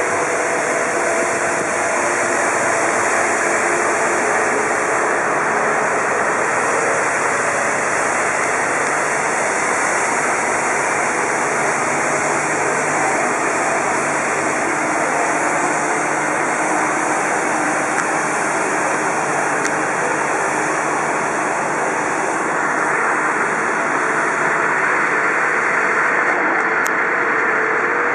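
Steady rushing roar of fire engines idling at the roadside, mixed with passing street traffic, with a faint steady engine hum under it and no sirens.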